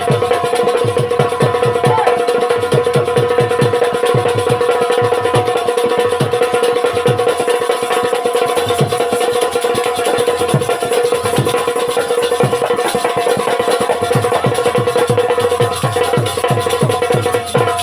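Instrumental rai folk music: fast, regular drum beats under a held melodic tone that stays on one pitch.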